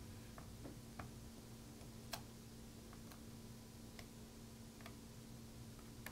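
Faint, irregular small clicks from a plastic spudger against the battery connector as it is pried and walked out of its socket on the logic board, roughly one a second, the loudest about two seconds in. A faint steady hum runs underneath.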